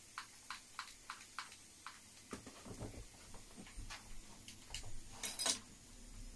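Even, sharp ticks about three a second, then the plastic wrapping of a vacuum-packed mattress being handled: soft thumps and rustling, with a short, sharp crinkle about five seconds in, the loudest sound.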